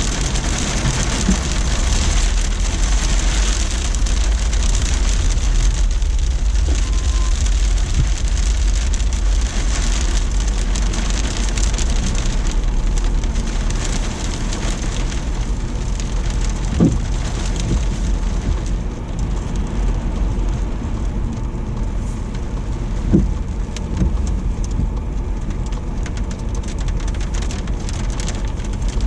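Heavy rain and sleet falling in a steady hiss over a deep, constant rumble; the hiss eases somewhat past the middle. Two short sharp knocks stand out in the second half.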